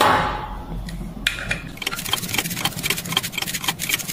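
Ratchet wrench with a hex bit clicking rapidly as it backs out a screw from a vacuum pump's end plate, after a brief scrape of metal near the start.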